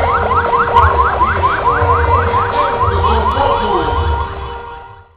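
Ambulance's electronic siren sounding a fast repeating rising chirp, about six sweeps a second over a steady tone, with a low rumble underneath. It fades away near the end.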